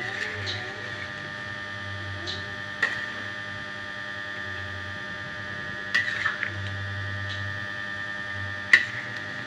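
A metal ladle knocking and scraping against an aluminium pot while a chicken curry is stirred: a few sharp clinks, the loudest near the end, over a steady high-pitched hum.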